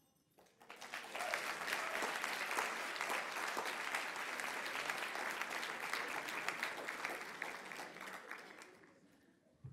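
Audience applauding: the clapping builds up within the first second, holds steady, and dies away near the end.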